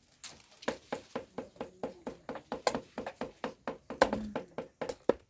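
Knife chopping on a cutting board in a steady rhythm, about three sharp strokes a second, as food is chopped by hand.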